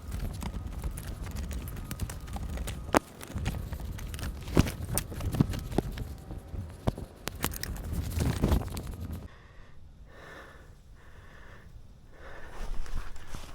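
Footsteps crunching through dry leaves and brush, with sharp snaps of twigs. About nine seconds in, this gives way to a person's heavy, rhythmic breathing close to the microphone.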